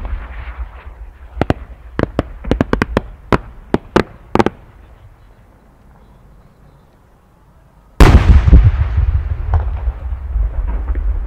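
A No. 10 (about 30 cm) aerial firework shell in flight: right after the launch report, about a dozen sharp pops ring out over some three seconds as the small attachments on its rising trail go off. About eight seconds in the shell bursts with a loud boom that echoes and rumbles away slowly.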